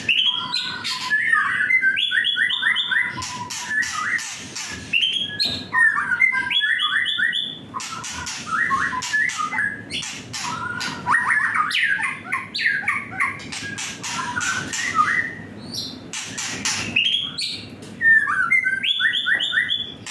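Young white-rumped shama singing in an agitated, aggressive state: repeated short bursts of quick whistled and chattering notes every few seconds, with sharp clicks between the phrases.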